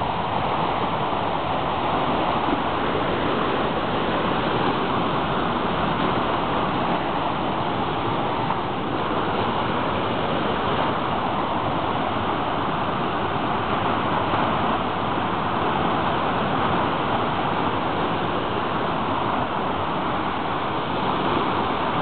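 A waterfall cascade pouring down a smooth rock slab into a pool, its water rushing in a steady, unbroken hiss at an even level.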